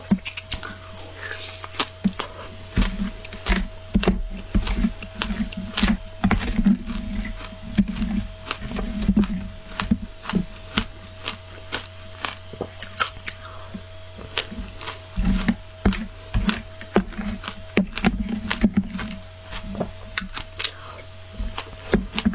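Close-up crunching and chewing of matcha shaved ice, with many sharp, irregular crunches and a faint steady hum underneath.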